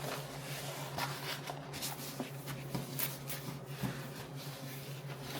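Rustling and soft crinkling of a diamond painting canvas and its plastic cover being handled and unrolled, with scattered small clicks.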